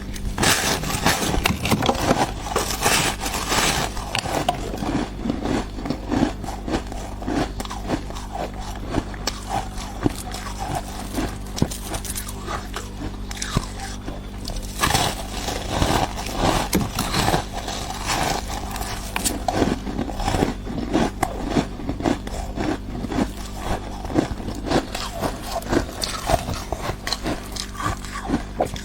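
Close-up biting and crunching of thick, crumbly freezer frost ice, a rapid irregular run of crisp crunches with some scraping.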